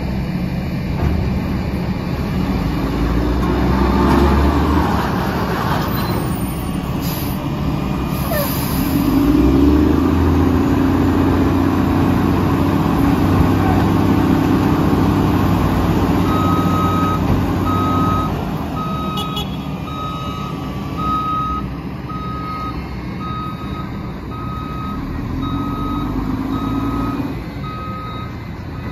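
Heavy diesel engines of a Mack LE front-loader garbage truck and a wheel loader running and revving under load while leaves are pushed into the truck's front-load container. From about 16 seconds in, a reversing alarm beeps steadily about once a second.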